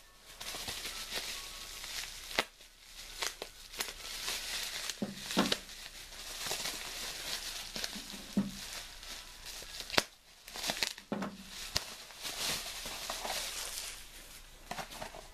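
Packaging being unwrapped by hand: a continuous crinkling and tearing rustle, broken by a few sharp clicks and short pauses.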